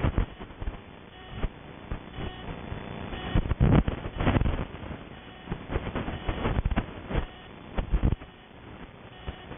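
Handling noise from a handheld camera carried through the rooms: irregular knocks and rustles, with a denser, louder run of knocks about four seconds in.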